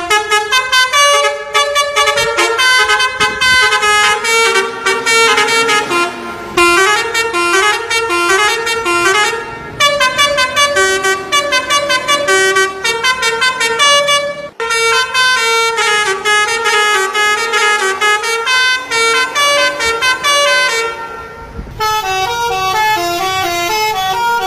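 Telolet horn of an Indonesian bus: a multi-tone musical horn playing quick melodies of stepped notes, in several phrases separated by short breaks.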